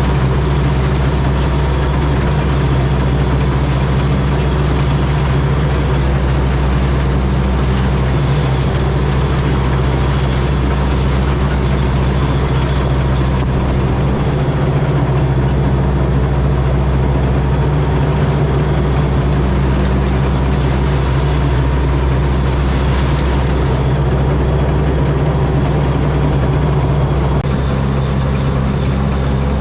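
Combine harvester's turbocharged 225-horsepower Mitsubishi engine running steadily at a constant speed, a loud deep hum under a dense machinery clatter.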